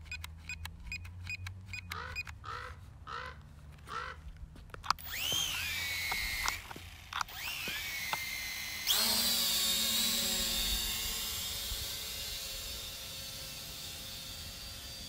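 Four short beeps, then a small drone's electric motors and propellers spin up briefly twice with a rising whine. About 9 s in they jump to full throttle for takeoff, and the high-pitched propeller whine then holds steady, slowly fading as the drone climbs away.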